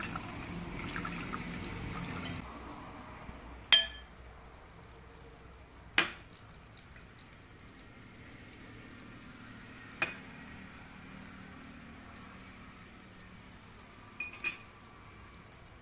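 Cold tap water running over cauliflower florets in a steel strainer for about the first two seconds. After that come four sharp clinks several seconds apart, the last a quick double, like a spoon or utensil against a bowl.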